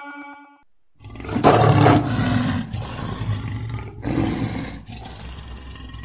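A lion roaring. It starts suddenly about a second in and is loudest for about half a second. It then carries on deep and lower, and swells again about four seconds in.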